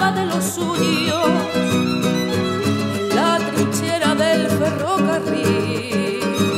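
A copla song: a woman singing with acoustic guitar and violin accompaniment.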